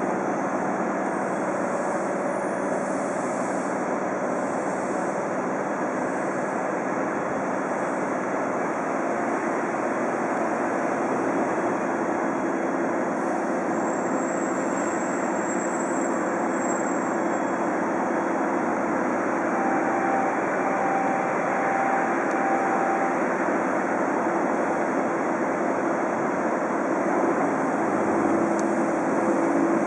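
Hitachi-built Trensurb electric multiple unit standing at the platform, its onboard equipment running with a steady hum, getting slightly louder near the end. A faint short beeping sounds a little past the middle.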